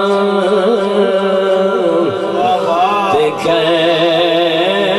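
A man's voice chanting in long, winding melodic phrases, amplified through a microphone.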